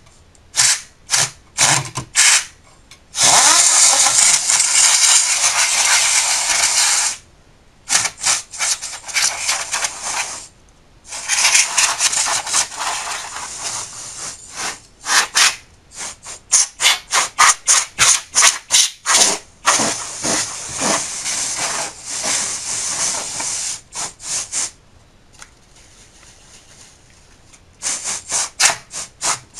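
Can of compressed air spraying to blow dust out of a computer's insides: runs of short puffs and three longer blasts of three to four seconds each, with a pause a little before the end.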